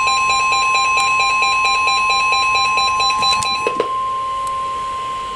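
NOAA Weather Radio warning alarm tone: one steady, loud 1050 Hz tone announcing that a warning message follows. A rapidly pulsing electronic beep sounds over it and stops a little before four seconds in.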